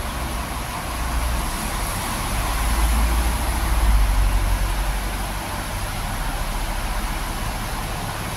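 Idling diesel engines of double-decker buses give a steady low rumble with a hiss over it, swelling a little about three to four seconds in.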